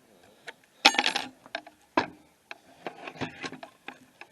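Pieces of metal clinking and clanking as they are handled and picked through. The loudest is a jangling, ringing clatter about a second in, followed by a single sharp knock near two seconds and a run of smaller clinks around three seconds.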